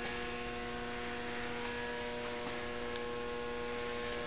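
Steady electrical hum, a stack of even tones that holds unchanged, over a faint hiss, with a light click just after the start.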